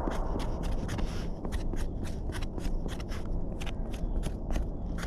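Footsteps walking at a steady pace, each step a short crunching click, about four a second, over a low steady rumble.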